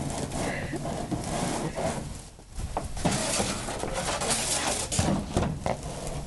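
Wolf-dog hybrid chewing and thrashing a plastic wading pool: irregular cracking, crunching and scraping of the plastic with knocks and scuffs.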